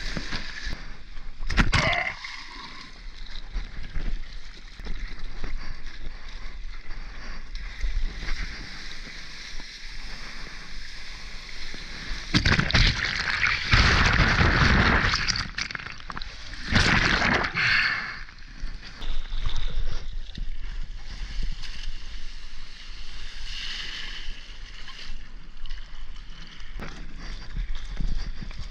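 Seawater sloshing and splashing close around a surfboard and the camera, with a short loud splash near the start and two longer loud spells of churning whitewater about halfway through, as the camera goes into the foam.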